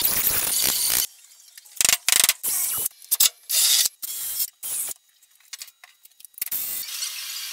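Porter-Cable router running for about a second, then cut off, followed by a quick string of short, abruptly clipped bursts of workshop tool noise separated by near-quiet gaps.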